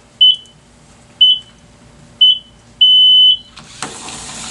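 Electronic start-countdown beeper of a mini-sumo robot bout: short beeps at one high pitch, about a second apart, ending in a longer beep that marks the start. Just after it, a broad rushing noise comes in as the robots drive at each other.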